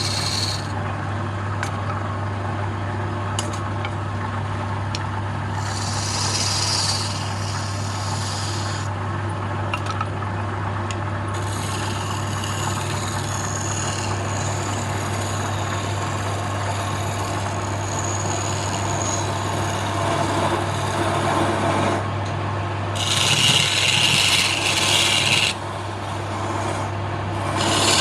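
Wood lathe running with a steady hum while a tool scrapes against the spinning wood in several stretches, loudest a little before the end.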